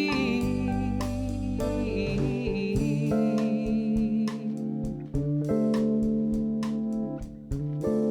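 Live band playing an instrumental passage of a slow ballad: sustained guitar and keyboard chords over bass, with light ticking percussion hits in the second half.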